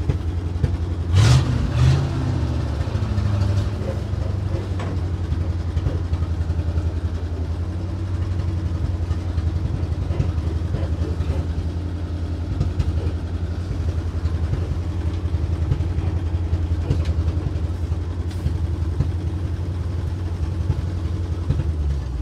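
A 1962 Ford C750 cabover truck's 332 Y-block V8 idling steadily, heard from inside the cab, with a brief louder burst about a second in.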